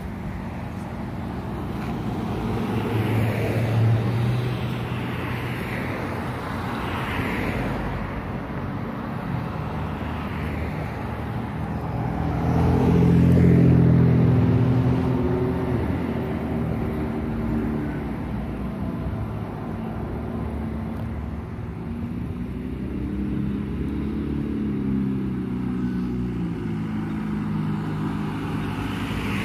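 Road traffic passing on a busy multi-lane road, a steady hum of tyres and engines. One vehicle's engine swells loudest as it passes about thirteen seconds in, and another passes a few seconds before the end.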